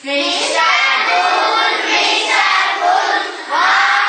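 A group of children chanting together in sing-song unison, in two phrases with a short break about three and a half seconds in.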